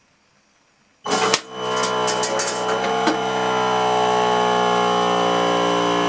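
A ToggleBlok containment valve's powered actuator starts about a second in with a clatter and then runs steadily as it drives the valve closed. Over it, the control panel's sounder gives a thin high steady buzz.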